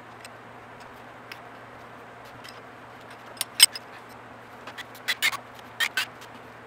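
Hand tools clinking on metal while an engine's bottom end is worked on: a few sharp metallic clicks and clanks, the loudest about three and a half seconds in and several more close together near the end, over a steady low hum.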